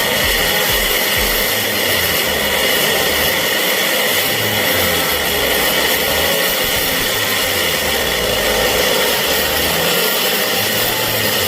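Mitsubishi L300's diesel engine held at steady raised revs, about half throttle, with loud, steady exhaust noise, being run up to clear its black exhaust smoke.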